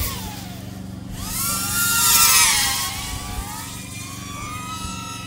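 FPV drone motors and propellers whining, several pitches at once that rise and fall with the throttle. The sound swells to its loudest about two seconds in. The drone is a DJI Avata running the Axisflying 3.5-inch upgrade motors and props.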